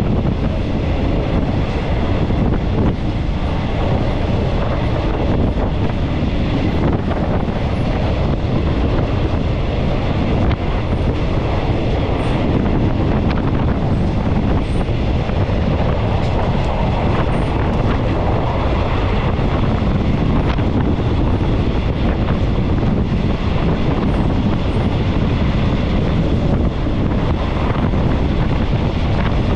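Steady rolling rumble of a moving passenger train, its wheels running on the rails, with occasional faint clicks.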